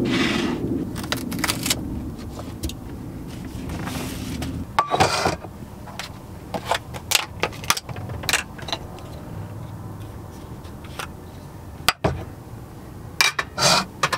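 Cooking clatter: a knife cutting asparagus on a wooden cutting board, and a metal frying pan and glass lid being handled and set down. It comes as a string of separate knocks, clicks and clinks.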